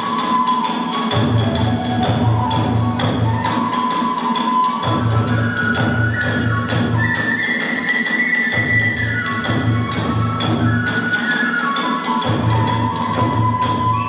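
Live kagura ensemble music: a bamboo flute plays a stepped melody that climbs higher in the middle, over steady drumming and rapid strokes of small hand cymbals.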